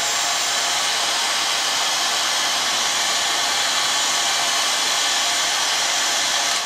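Paint-stripper hot air gun running steadily, blowing hot air onto heat-shrink tubing to shrink it: an even fan-and-air rush at constant strength.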